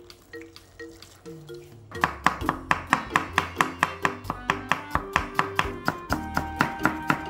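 Background music with plucked notes; from about two seconds in, a chef's knife chops rapidly and evenly on a wooden cutting board, about five strokes a second, slicing onion and cucumber.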